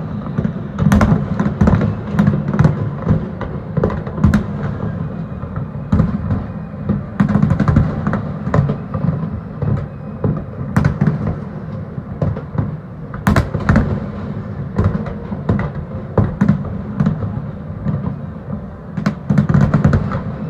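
Fireworks display: many sharp bangs and crackles, several a second, over a continuous low rumble of overlapping booms.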